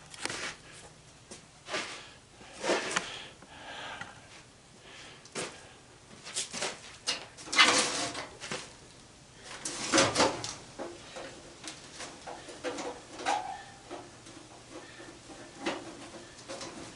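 Irregular clanks, scrapes and taps of a sheet-metal fan housing being worked apart with hand tools.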